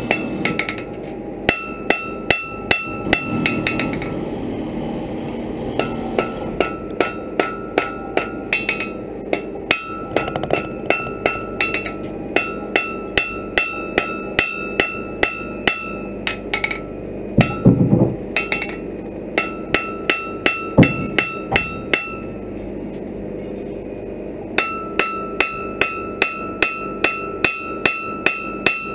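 Blacksmith's hand hammer striking hot iron on an anvil, forging a fire poker: evenly paced blows, about two to three a second, each with a bright ringing note from the anvil. The runs of blows are broken by short pauses.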